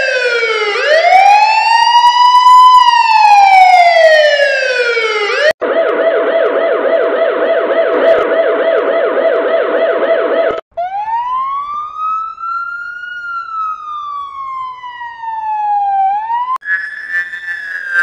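Police sirens played one after another in sharp cuts. First comes a slow wail that rises and falls. About five seconds in it switches to a rapid warbling siren. About ten seconds in comes another slow wail that climbs and then sinks. Near the end a higher fire-truck siren tone starts, slowly falling.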